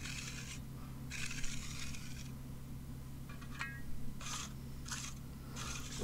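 A 5-by-12-inch hand trowel scraping over fresh concrete on a curb top in repeated strokes, about six of them. The first two are longer and the later ones shorter and quicker.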